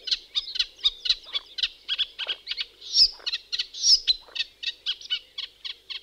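Eurasian reed warbler singing: a steady, rhythmic run of short chattering notes, several a second, with two louder, higher notes about three and four seconds in.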